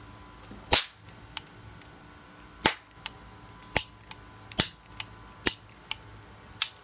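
Toy cap gun firing: six sharp pops, irregularly spaced about a second apart, with a few fainter clicks between them.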